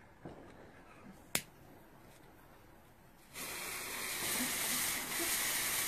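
A single sharp click, then about three seconds in the fuse of a Bull Dog 30 g firecracker catches and burns with a loud, steady spitting hiss as it throws off sparks.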